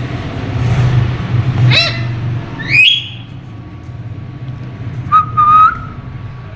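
Indian ringneck parakeet whistling: a short call about two seconds in, a loud rising whistle just before three seconds, then a held whistle between five and six seconds.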